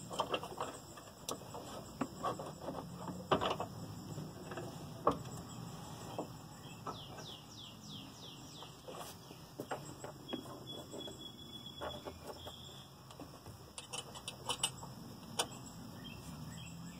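Scattered clicks and knocks of metal parts and tools being handled as a diesel fuel lift pump is fitted to its mount under a pickup truck. A bird chirps runs of quick falling notes in the background, most clearly about six to eight seconds in.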